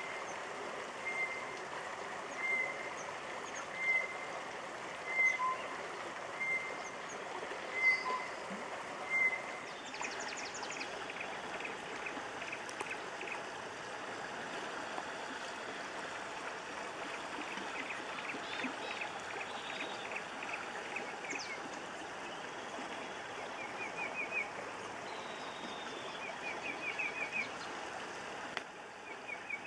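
Malewa River flowing steadily over shallow riffles, with birds calling over it. For the first ten seconds one bird repeats a short single note about every second and a quarter, eight times. After that come several bursts of short, rapid trills.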